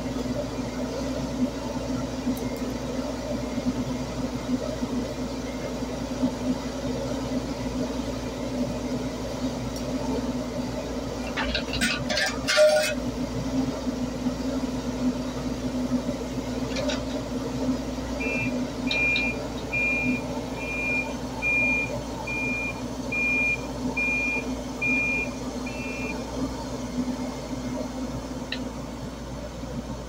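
Mini excavator's diesel engine running steadily, with a short burst of knocking and clanking about twelve seconds in. Later comes a single-pitched warning alarm beeping a little over once a second for about eight seconds while the machine moves.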